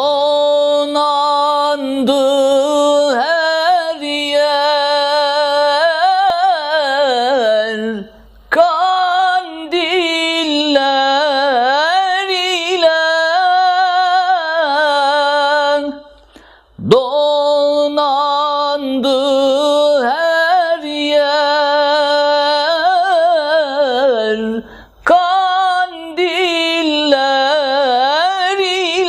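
A man singing an ilahi, a Turkish Islamic hymn, in the Acemaşiran makam, solo and unaccompanied, in long ornamented phrases with a breath pause about every eight seconds.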